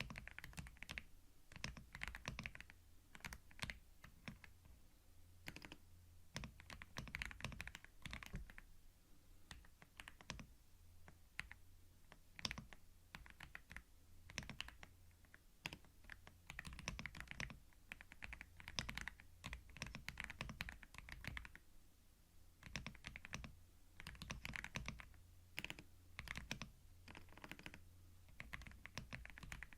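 Typing on a computer keyboard: quick runs of soft key clicks with short pauses between them, recorded close to a binaural microphone.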